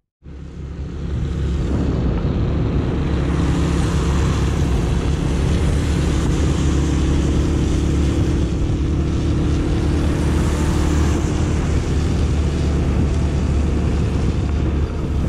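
Honda 125 Deluxe motorcycle's single-cylinder four-stroke engine running steadily while under way, with wind rushing over the microphone. The sound fades up over the first second or two, then holds steady.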